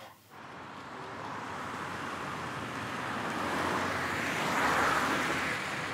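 Street traffic noise: a passing car swells to its loudest about five seconds in, then eases off.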